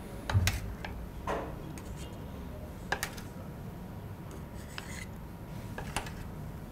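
A spatula scraping and clinking against a metal baking tray while baked chicken pieces are lifted out onto a plate: a few separate sharp clinks, the loudest with a dull thud about half a second in.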